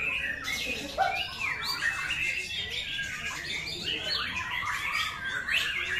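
White-rumped shama (murai batu) singing continuously: a fast, varied stream of whistled glides, chattering notes and harsher squawk-like calls.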